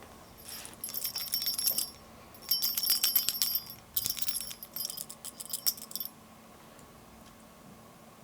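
Metallic jingling in three bursts of a second or two each, with short pauses between, then quiet.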